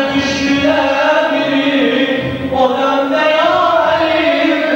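Male voices chanting an Islamic devotional hymn (ilahi) in a mugham style, holding long notes that waver and glide slowly up and down.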